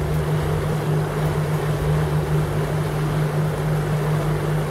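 River cruise boat's engine running with a steady hum, over the rush of the churning wake along the hull.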